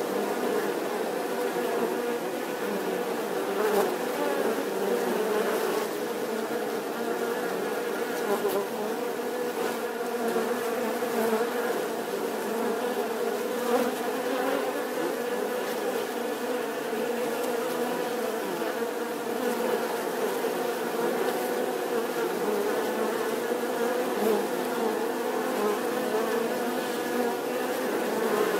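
Many bees buzzing together: a steady, dense hum of many overlapping wingbeat pitches that doesn't let up.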